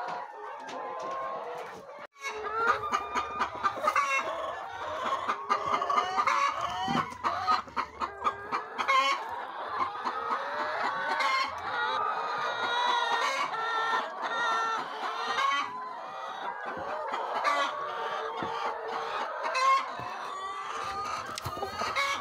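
A flock of brown laying hens clucking and calling over one another, with scattered sharp clicks mixed in.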